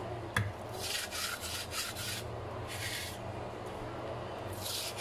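A bristle brush scrubbing the wooden body of a clarinet's lower joint, mainly through its bore. It comes as a few bouts of scratchy rubbing strokes with short pauses between them, and there is a light click about half a second in.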